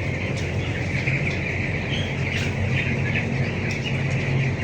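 A large flock of 13-day-old broiler chicks peeping continuously, over the steady low hum of the shed's ventilation fan.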